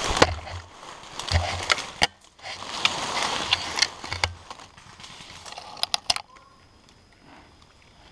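Dry fallen leaves and brush rustling and crackling in several bursts as someone moves through them and settles into the leaf litter, with dull thuds of body movement. A few sharp snaps about six seconds in, then it goes quiet.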